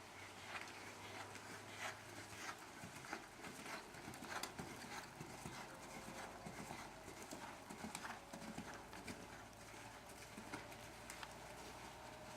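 A horse's hooves striking the ground in an irregular clip-clop, about one or two hoofbeats a second.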